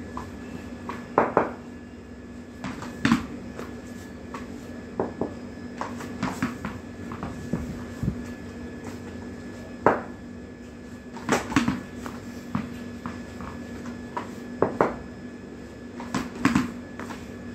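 Sharp knocks of a cricket bat meeting a ball and the ball bouncing on the hard floor, about six loud ones at irregular intervals with quieter taps between, over a steady low hum.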